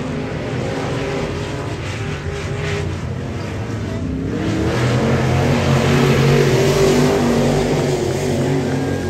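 Several dirt-track race cars running hard around a dirt oval. Their engines swell a few seconds in as the cars come past and ease off a little toward the end.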